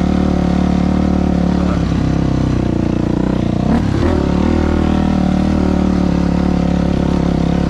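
2000 Yamaha YZ426F dirt bike's four-stroke single-cylinder engine running at a steady throttle while riding, with a brief change in pitch about four seconds in.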